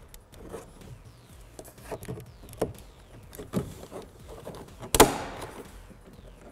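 Plastic trim tool prying at the plastic cover in a truck's inside door pull handle: small clicks and scrapes of plastic on plastic, then one loud sharp snap about five seconds in as a retaining clip lets go.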